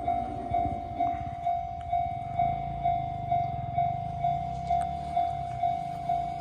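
Japanese railway level-crossing warning bell ringing, a steady electronic ding about twice a second, over a low rumble.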